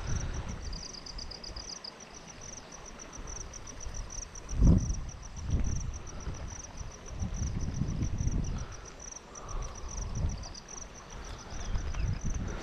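Insects chirping in a fast, steady pulsed trill, with a second, slightly lower chirping call coming and going. Irregular low rumbles come and go underneath, and a single low thump nearly five seconds in is the loudest sound.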